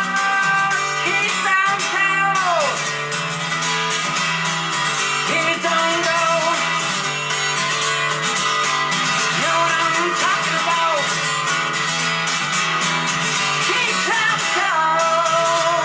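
Recorded rock music with a guitar-led passage and gliding bent notes, played back through a Pioneer PE-101A full-range speaker. Almost no deep bass comes through.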